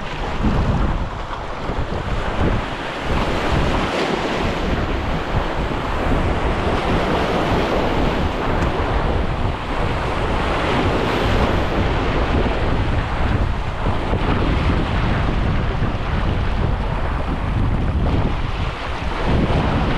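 Wind buffeting the microphone over the rushing wash of sea waves, a loud, steady noise that swells and eases without a break.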